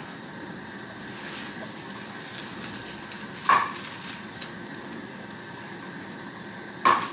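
A steady hiss, with two short, sharp crackles as a plastic bag is handled, about three and a half seconds in and again near the end.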